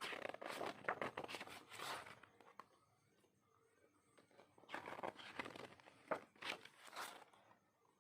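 Packaging being handled, rustling and crinkling with small clicks, in two bouts: one in the first two seconds and another from about five to seven seconds in.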